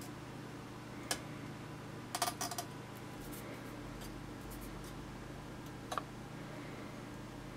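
A few light clicks and taps over a steady low hum: one click about a second in, a quick rattle of several clicks around two seconds, and another near six seconds.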